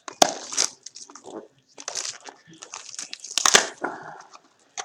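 Trading card pack packaging handled and opened by hand: irregular bursts of rustling and crinkling from the wrapper and the small cardboard pack box.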